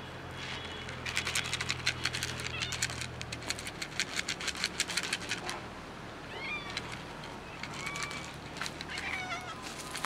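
Stray cats meowing: several short meows in the second half. Before them, in the first few seconds, a rapid clatter of dry cat food rattling in a plastic container.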